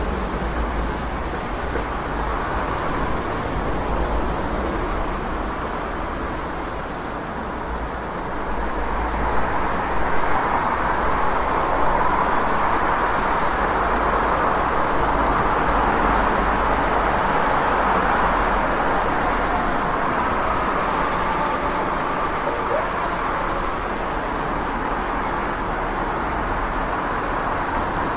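City street traffic: a continuous wash of passing cars over a low rumble, swelling louder about a third of the way in and easing a little near the end.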